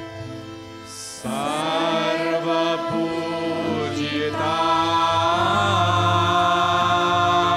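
Background music: slow music of long held tones over a steady low drone, with a louder phrase coming in about a second in and some wavering, gliding pitches.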